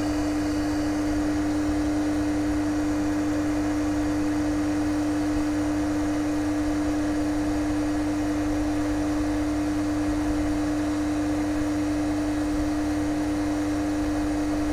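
Hot air rework station blowing steadily at a low airflow setting, a constant hum with one steady tone, while reflowing a phone's CPU chip.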